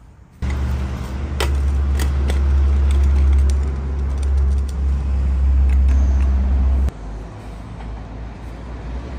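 Heavy road traffic going past close by: a steady, low diesel-engine drone of lorries that starts suddenly about half a second in and drops in level about seven seconds in. A couple of light metallic clinks come near the start.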